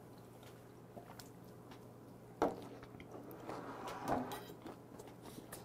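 Quiet sounds of a man drinking a glass of beer and lowering it to the table: a single sharp knock about two and a half seconds in, then soft handling and mouth noises near four seconds.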